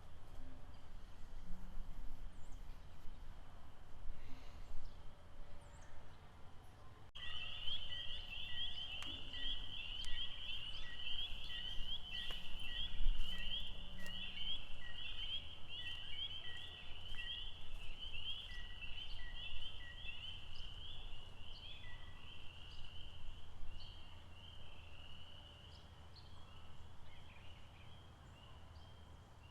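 Outdoor lakeside ambience: a dense chorus of rapid, high-pitched chirping from small animals over a low steady rumble. The chorus starts abruptly about seven seconds in and thins out and quietens near the end, while a lower short note repeats about twice a second through the middle stretch.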